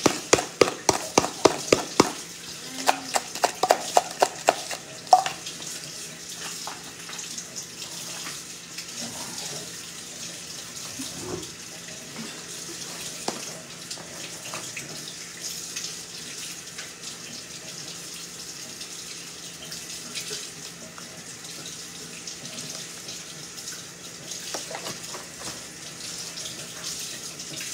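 A seasoning shaker shaken hard over a mixing bowl: two quick runs of rattling shakes, about five a second, in the first five seconds. A steady hiss runs underneath, with a few faint knocks of jars handled on the counter.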